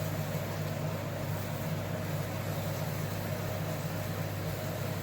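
Steady low hum of a running appliance motor, with a faint hiss and no change in pitch or level.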